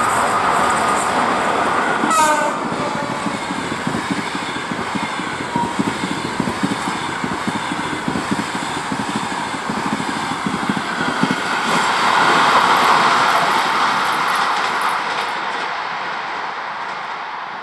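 A passenger train passes behind a ChS4 electric locomotive, whose horn sounds for about the first two seconds and ends with a falling pitch. Then comes a long run of rhythmic clickety-clack as the coaches' wheels cross the rail joints, swelling once more before fading near the end.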